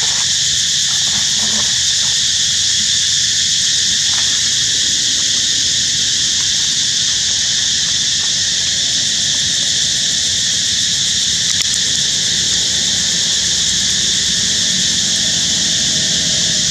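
A loud, unbroken chorus of insects: a steady high-pitched buzz.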